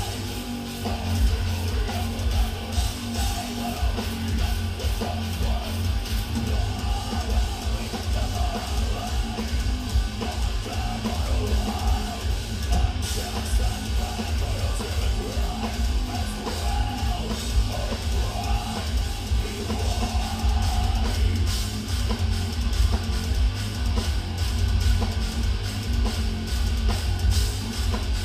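Live heavy metal band playing: down-tuned electric guitars and bass chugging over fast double-kick drums and cymbals.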